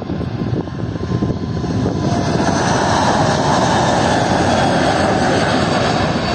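Four-engine Airbus A380 jet airliner at takeoff power as it lifts off and climbs away: dense engine noise that grows louder about two seconds in and then holds steady, with a steady whine on top.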